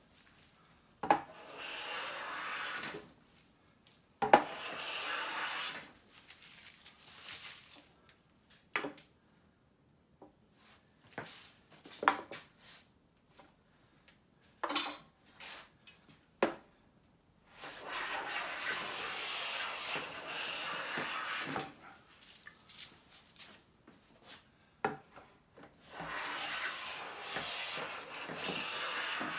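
Siegley No. 7 jointer plane cutting along a straight-grained pine board in four long strokes of two to four seconds each. There are sharp knocks in the gaps between the strokes, and the first two strokes each start with a knock.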